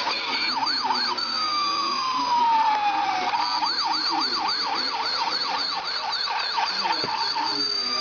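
Electronic siren of a battery-operated bump-and-go toy ambulance: a fast wavering wail of about three sweeps a second, broken by one long falling tone early on, then the fast wail again.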